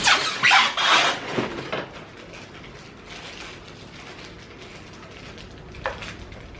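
Packaging being pulled and handled while a sewing machine is unboxed: loud scraping and squeaking strokes in the first two seconds, then quieter handling with one sharp click near the end.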